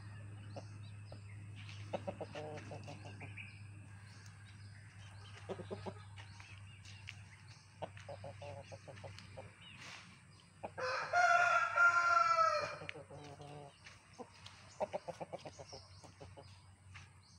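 A rooster crows once near the middle, one call about two seconds long, with quieter scattered clucks and small clicks around it over a steady low hum.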